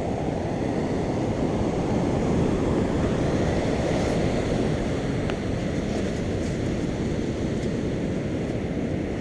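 Steady low rumble of wind and surf at the shore, with no clear breaks or strokes.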